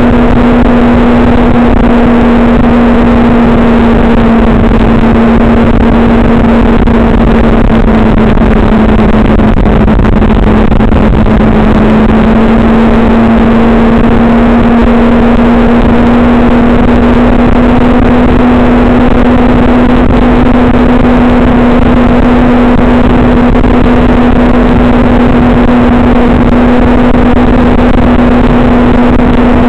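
A vehicle engine running steadily at nearly constant speed, its note dipping slightly about ten seconds in and then holding again, over a constant rushing noise.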